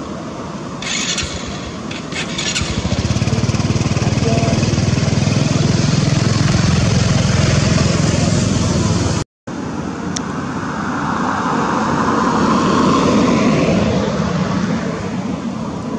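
Motor vehicle engine passing close by, swelling and holding for several seconds. After a short break, a second passing engine rises and fades near the end.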